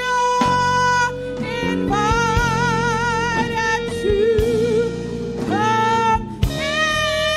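Gospel worship song: a singer holds long, wavering notes over steady instrumental accompaniment with a sustained low note.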